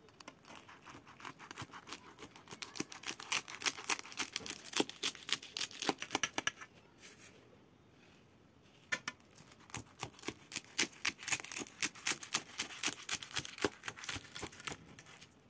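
A knife cutting through the crisp baked pastry top of a cheese burek, a dense crackle of breaking layers. It comes in two cuts with a short pause between.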